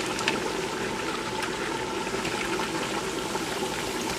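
Sliced peppers and onions cooking in a wet sauce in a frying pan on an electric stove: a steady sizzle with a few faint crackles.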